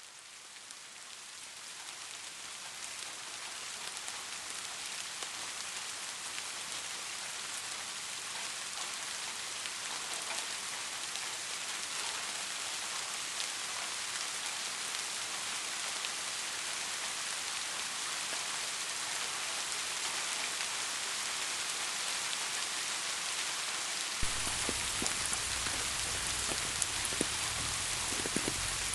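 Steady rain falling, fading in over the first few seconds. Near the end a low undertone joins and a few louder individual drops strike.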